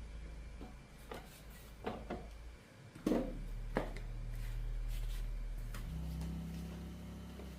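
A few sharp clicks and knocks, the loudest about three seconds in, over a low steady hum that shifts in pitch about three seconds in and again near six seconds.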